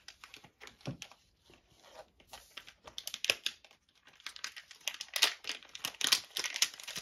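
The wrapper of a 2008-09 Fleer basketball card pack crinkling and tearing as it is pulled open by hand. The rustling is irregular, sparse at first and coming thicker and louder from about three seconds in.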